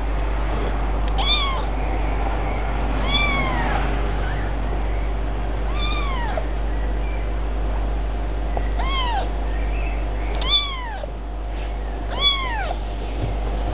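Kitten meowing six times, about every two seconds: short, high-pitched mews that rise and then fall in pitch.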